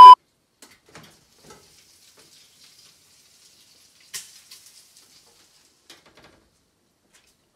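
A steady test-tone beep cuts off right at the start. Then food frying faintly, a thin sizzle with scattered light clicks and one sharper tick about four seconds in.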